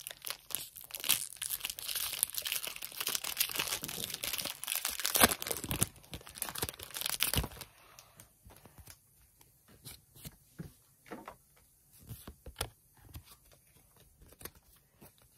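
Foil wrapper of a Pokémon Lost Origin booster pack being torn open and crinkled, a dense crackling for about seven and a half seconds. After that it drops to faint, scattered rustles and taps of cards and packaging being handled.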